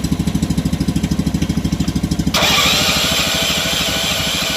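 Small engine of a homemade karakat all-terrain vehicle idling with an even beat of about ten pulses a second. A little over two seconds in, a louder, hissing noise suddenly takes over and covers the beat.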